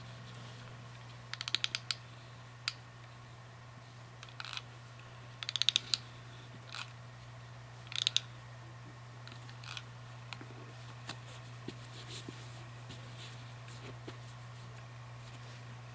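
Bursts of quick, sharp clicks and taps from hands working with craft tools and materials, in several short clusters during the first half, then fainter single ticks. A steady low hum sits underneath.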